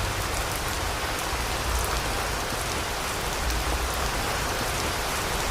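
Steady rain falling, with faint individual drop ticks over a continuous low rushing.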